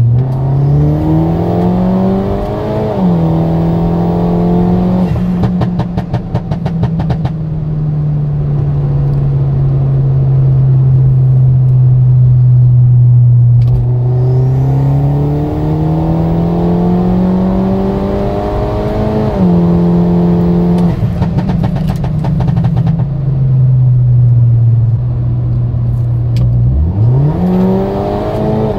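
Turbocharged Mini Cooper's N18 1.6-litre four-cylinder under hard acceleration, heard from inside the cabin. Twice the revs climb and then drop sharply, and each time a rapid crackle of exhaust pops and burbles follows off the throttle. Near the end the revs rise quickly once more.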